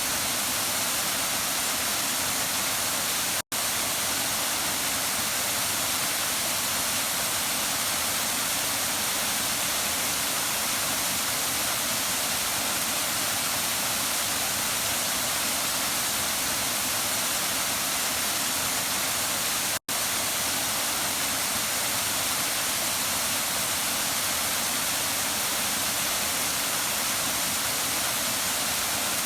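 Waterfall: a steady rush of falling water, an even hiss strongest in the upper range. The sound drops out for an instant twice.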